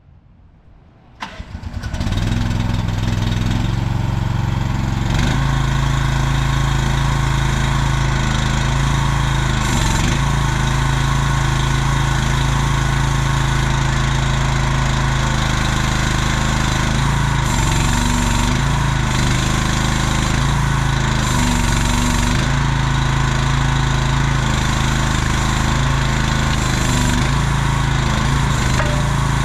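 Engine of a CFG Industrial MX12RX mini excavator starting about a second in, then running steadily at idle.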